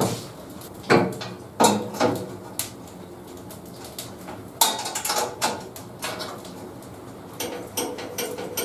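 Sharp metallic knocks and clatter of tools and fittings being handled on a bandsaw table: single knocks in the first few seconds, a busier ringing clatter about halfway through, and a run of small clicks near the end.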